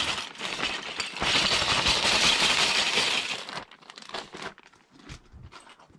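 Loose LEGO bricks poured out of a plastic bag, clattering onto a tabletop in a dense rattle that stops about three and a half seconds in, followed by a few scattered clicks as pieces settle.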